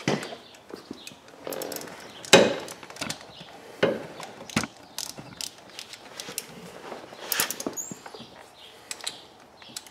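Socket ratchet clicking in short, uneven runs as it snugs down the banjo bolt on a brake caliper's hose fitting, with metal tool clinks and a sharper knock about two and a half seconds in.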